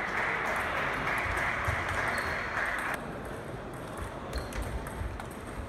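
Table tennis ball clicking sharply off bats and table during a rally. For the first three seconds a steady rushing noise sits over it and then cuts off suddenly.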